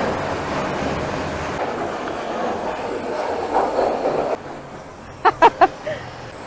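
Pressure washer spraying water in a steady loud rush, which stops about four seconds in and leaves a fainter hiss. Near the end come a few brief, sharp, pitched sounds.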